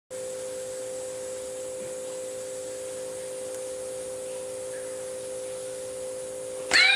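A steady, even electronic tone holds throughout. Near the end a loud, shrill, pitched scream starts suddenly.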